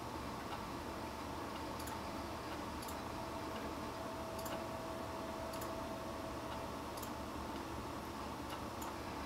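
Steady low hum and hiss with faint, sharp ticks about once a second at uneven spacing, and a faint steady tone for a few seconds in the middle.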